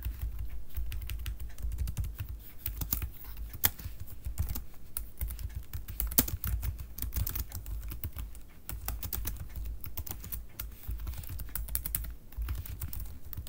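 Typing on a computer keyboard: an irregular run of quick key clicks, over a steady low hum.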